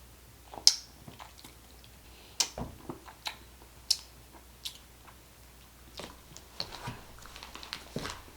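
Close-up eating sounds from a mukbang of sherbet ice cream: scattered wet mouth smacks and sharp clicks, irregular and spaced out, the loudest a single click about a second in.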